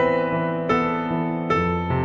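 Background music: slow, gentle piano, with a new note or chord struck about every three-quarters of a second and left to ring.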